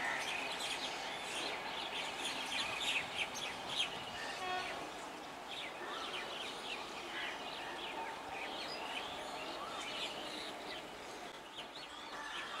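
Small birds chirping over and over, short quick calls over a steady background hiss of outdoor noise.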